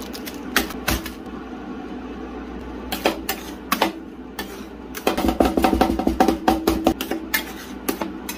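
Steel spatulas chopping and scraping against the chilled stainless-steel plate of an electric rolled ice cream machine, cutting cake into the cream base. Scattered sharp taps at first, then fast, steady chopping from about five seconds in, over a steady hum.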